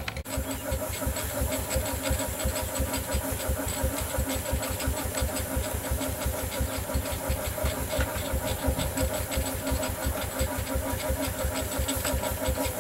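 A 5/8-scale Wood Brothers 22/70 steam traction engine running, its exhaust beating evenly and quickly at about seven chuffs a second, with steam hissing.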